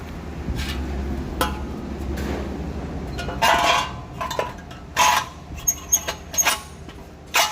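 Metal parts clinking and clanking, several separate knocks with a short ring, as a sheet-metal dust shield is fitted onto a truck's front axle.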